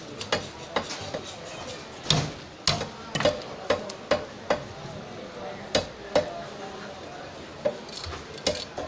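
A rohu fish is being cut on a large upright curved fish-cutting blade (a boti): sharp, irregular knocks and scrapes, about one or two a second. Many strokes are followed by a brief metallic ring from the blade.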